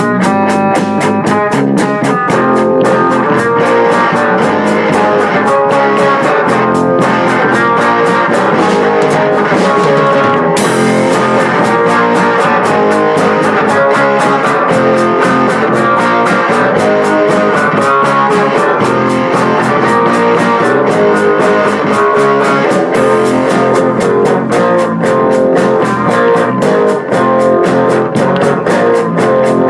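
Background music with guitar over a steady drum beat.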